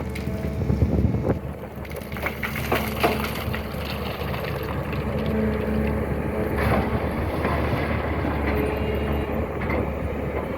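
SANY excavator's diesel engine running steadily under load, with a few scattered knocks.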